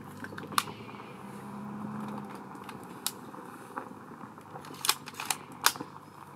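Sharp metallic clicks of a scoped hunting rifle being handled and loaded, about six of them spread across a few seconds, the loudest two near the end.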